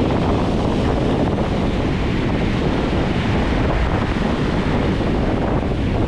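Atlantic surf breaking and washing up over the sand in a steady wash of noise, with wind buffeting the microphone.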